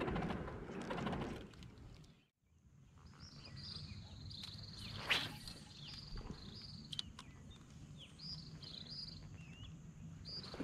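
Small birds chirping over a steady high insect drone, with one sharp click about halfway through. The first two seconds hold a louder, noisy sound that cuts off abruptly.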